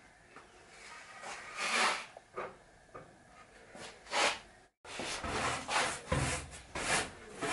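Planed pine boards being shifted against each other on a workbench: wood rubbing and scraping with light knocks, loudest a little under two seconds in. After a brief dropout near the middle, duller handling noise with a low rumble follows.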